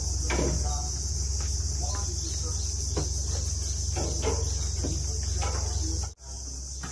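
Steady high-pitched buzzing of insects over a low steady rumble, cut off briefly about six seconds in.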